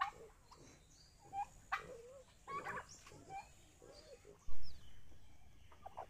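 Domestic turkeys and chickens calling: a string of short calls. A low thump about four and a half seconds in is the loudest sound.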